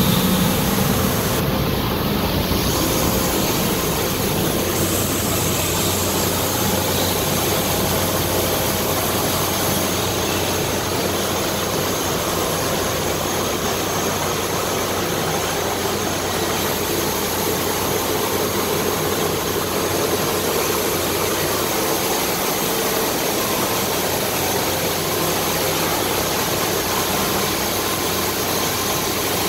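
Amada FO CO2 laser cutting machine running: a steady, even machine noise with a low hum underneath.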